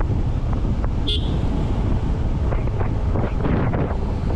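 Riding a Yamaha R15 V4 at speed: wind buffeting the helmet-mounted camera's microphone over the bike's 155 cc single-cylinder engine and tyre noise. A brief high chirp sounds about a second in.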